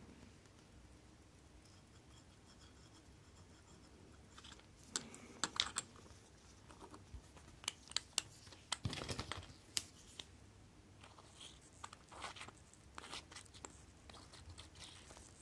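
Small, sharp metal clicks and short scrapes from close-up handling of a vintage Citizen chronograph's stainless steel case as its caseback is fitted and turned on. Quiet at first, with the clicks bunched about five and nine seconds in.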